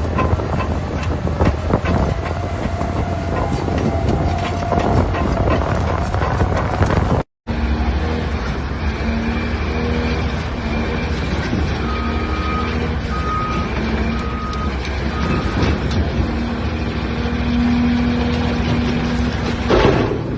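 Heavy construction machinery engine running, with clanking and rumble. After a sudden cut, a machine's reversing alarm beeps at an even pace over the engine noise.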